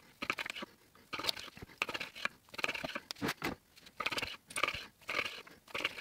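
Long slicing knife sawing back and forth through a smoked beef brisket's crusty pepper bark, crunching in short repeated strokes with brief pauses between slices.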